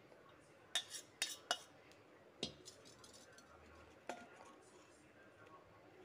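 A steel spoon and pot clinking against a metal dish while thick milk is spooned over bread pieces. There is a quick run of sharp clinks in the first two and a half seconds and one more about four seconds in.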